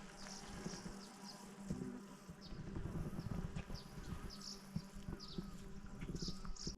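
A steady low insect-like buzz, with a small bird chirping in short high notes about twice a second and light rustling underneath.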